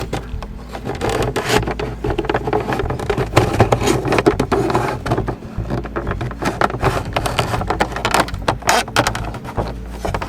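Hand tool work on plastic trim: irregular scraping, rubbing and clicking as a Phillips screwdriver and plastic panels are worked loose.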